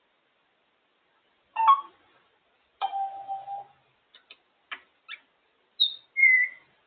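African grey parrot vocalising in a string of separate sounds: a short call, a held whistle, a few sharp clicks, then a high chirp and a falling whistle near the end.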